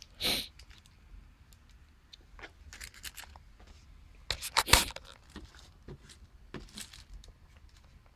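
Clear plastic packaging bag crinkling and rustling in short, irregular bursts as small compact cameras are handled on it, with scattered light clicks. The loudest burst comes about four and a half seconds in.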